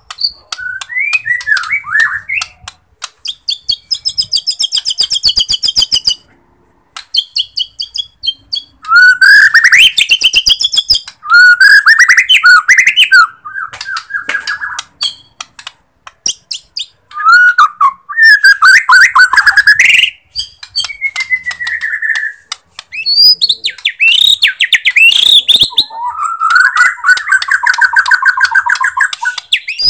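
White-rumped shama (Bornean murai batu) singing a long, varied song. Loud rising and falling whistled phrases alternate with high trills and fast rattling clicks, in bursts broken by short pauses.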